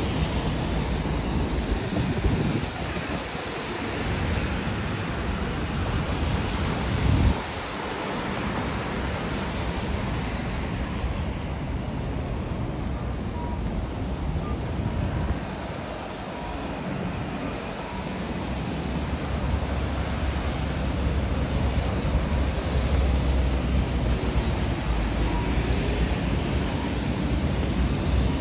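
City traffic noise from wet roads and an elevated expressway, a steady hiss and rumble, with wind buffeting the microphone in gusts, hardest about seven seconds in.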